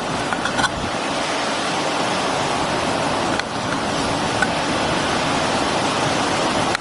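Steady rush of ocean surf and strong wind, with wind buffeting the microphone.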